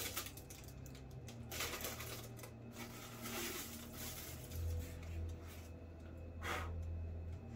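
Handling noise from statue parts and packaging: scattered light clicks, taps and rustles as pieces are moved about. A low steady hum comes in about halfway through and stops near the end.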